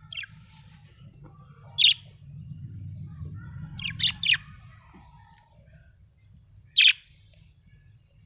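Budgerigar giving short, sharp chirps: single calls near the start and about two seconds in, a quick run of three around four seconds, and one more near seven seconds. Softer twittering and a steady low hum lie underneath.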